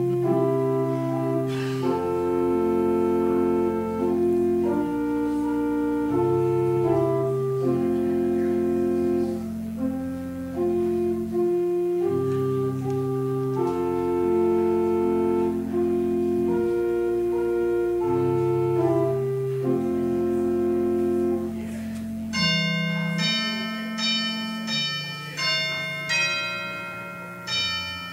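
Church organ playing slow, held chords of a prelude. About 22 seconds in it gives way to bell-like chimes striking single notes of different pitches, each ringing out, roughly one a second.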